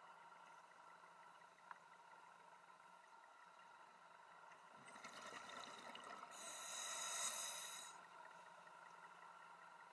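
A scuba diver breathing through a regulator underwater: a breath starts about five seconds in and ends in a louder rush of exhaled bubbles lasting about a second and a half.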